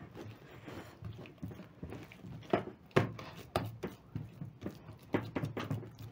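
Hands patting and rubbing an oiled ball of yeast dough in a glass bowl, spreading the cooking oil over it: irregular soft, wet pats and squelches, the strongest about two and a half and three seconds in.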